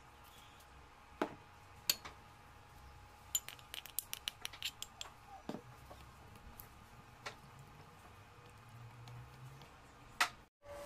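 Wooden spoon knocking against a glass bowl while stirring a thin, watery sauce. A few separate taps, then a quick run of clicks from about three to five seconds in, then a few more single taps.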